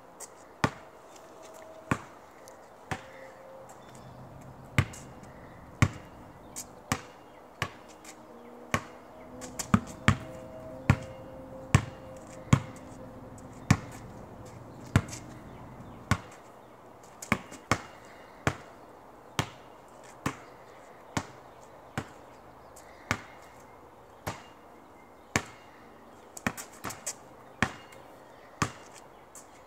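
Basketball dribbled on an asphalt driveway: sharp bounces about once a second at an uneven pace, with a quick run of bounces near the end, as the ball is pushed out and snatched back on both sides.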